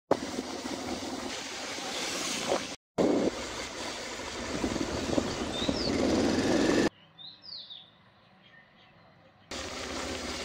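Motorcycle riding noise, engine and wind on the microphone, with a short dropout just under three seconds in. About seven seconds in it gives way for a couple of seconds to a much quieter stretch in which a bird chirps a few times, and then the riding noise comes back.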